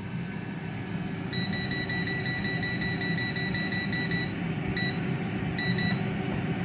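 Tower digital air fryer's touch panel beeping as the cooking timer is raised one minute per press: a fast run of about fifteen short, high beeps, then a few more single beeps, as it is set to 23 minutes. The fan hums steadily underneath.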